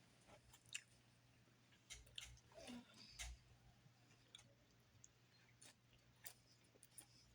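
Faint chewing of salad, with scattered soft crunches and small mouth clicks.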